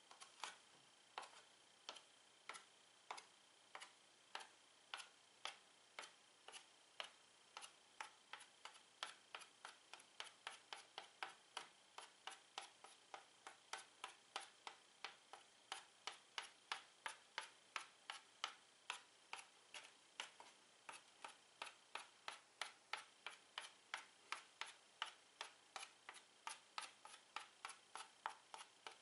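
Stick of chalk tapped again and again on a chalkboard, dotting in stars. The sharp taps come about once a second at first, then quicken to two or three a second after several seconds.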